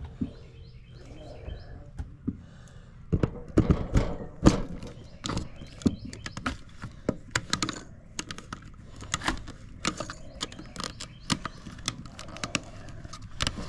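Irregular clicks and knocks of a 50-amp generator cord's plug being handled and fitted at a power inlet box, with a cluster of louder knocks a few seconds in.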